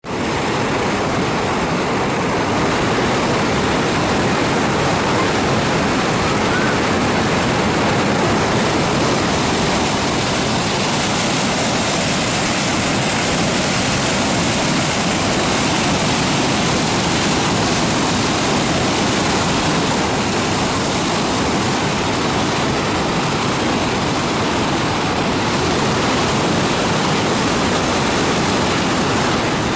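Terek River water rushing and churning over a concrete weir: a steady, loud rush of white water.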